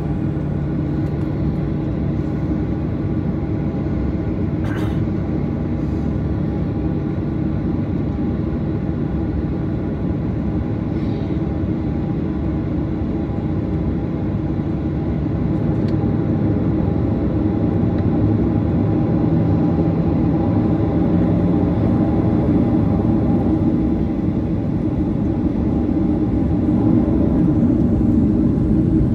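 Boeing 737-800 cabin noise: its CFM56-7B jet engines running, a steady rumble with a layered hum. It grows a little louder about halfway through and again near the end.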